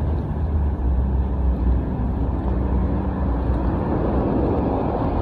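A steady, loud outdoor rumble with a rough noisy hiss above it, heaviest in the low end. Nothing stands out from it.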